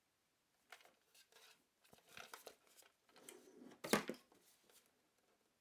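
Faint handling noise from a small plastic-bodied fan heater being turned over in the hands: irregular rustles and light knocks, with one sharper knock about four seconds in.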